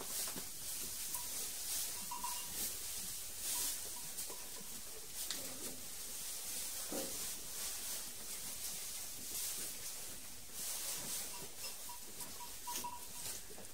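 Sheep feeding on a freshly opened bale of oat hay: steady rustling and crackling of dry oat straw as they pull at it and chew.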